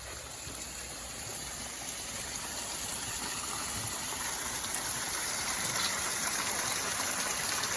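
Water rushing down a large recirculating backyard waterfall and rock stream. The steady rush grows gradually louder.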